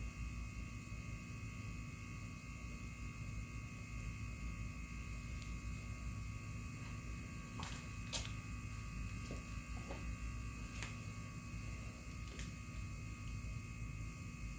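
Steady electrical hum in a small room, with a few light clicks and taps a little past halfway through, as of small parts or tools being handled.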